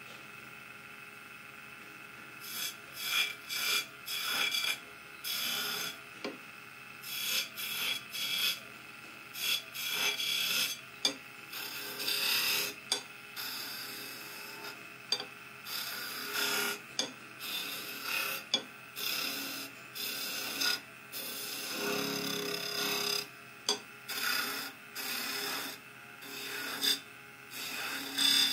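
Wood lathe running with a steady whine while a flat chisel cuts into the spinning wooden spindle in many short, repeated scraping strokes that shave off curls of wood. The first couple of seconds hold only the running machine; the cutting strokes begin about two and a half seconds in.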